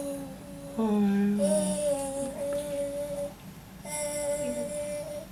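A baby making long, steady humming vocal noises on one held pitch: two drawn-out notes, the second starting about four seconds in.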